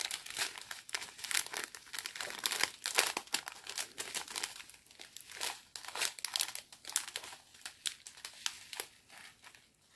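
Small clear plastic bags of diamond-painting drills crinkling as they are handled. The crackles come thick and irregular at first, then thin out toward the end.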